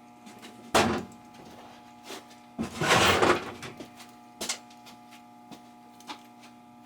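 Handling and rummaging among wiring parts and tools: a sharp knock about a second in, a longer rustling scrape about three seconds in, and scattered clicks, over a steady electrical hum.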